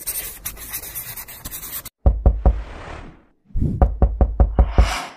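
Animated-intro sound effects: about two seconds of crackly noise, then a run of sharp knocks with deep thuds, four together and then about eight in quick succession, ending in a hissing whoosh.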